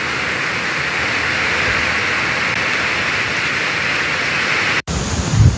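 Heavy rain falling in a steady hiss, which cuts off abruptly near the end. It is followed by gusts of wind buffeting the microphone.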